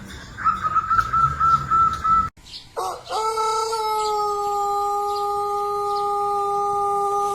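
Pelung rooster crowing: a long crow that starts about three seconds in and is held at one steady pitch until the end. Before it comes a thinner, higher held note that breaks off suddenly.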